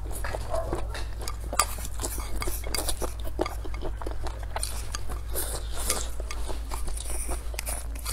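Close-up eating sounds: slurping and chewing braised squid, with wooden chopsticks repeatedly clicking and scraping against a ceramic bowl. A steady low hum runs underneath.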